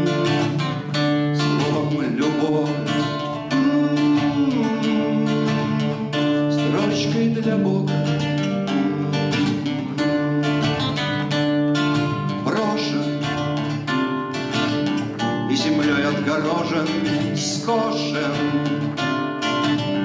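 Solo acoustic guitar playing a song accompaniment with steadily picked and strummed chords, and a man's voice singing over it at times.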